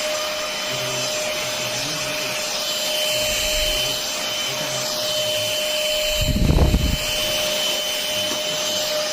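VersLife S6PRO cordless stick vacuum running steadily, a continuous whine over a rush of air. About two-thirds of the way through comes a brief, louder low rumble.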